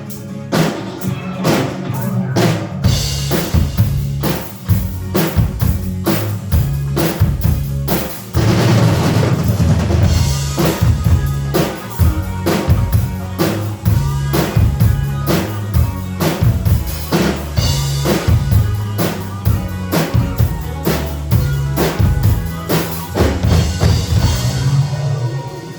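Miked acoustic drum kit played in a steady rock beat, with kick, snare and cymbals, over a rock backing track with a bass line that fills out about three seconds in. The kit has just been miked and is being sound-tested.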